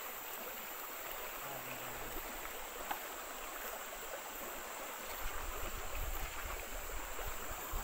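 Shallow stream flowing over a stony bed, a steady rushing of water. About five seconds in, a low rumble joins it.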